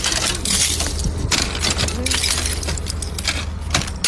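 Clear ice on a car door and window being cracked and scraped off with a plastic ice scraper: a dense run of crackles and sharp snaps as the ice sheet breaks away.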